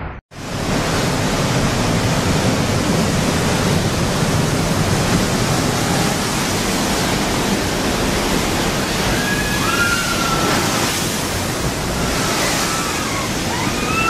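Storm surf breaking and seawater surging, a loud, steady rush of water noise with no let-up, much of it likely wind on the microphone.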